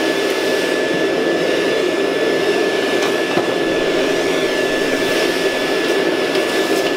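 Canister vacuum cleaner running steadily, with a thin high whine over its motor noise.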